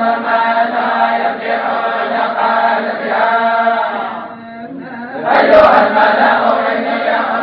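Tolba, a group of Quranic students, chanting together in unison over a steady held low tone. The chanting drops away briefly about four seconds in, then the voices come back in at full strength.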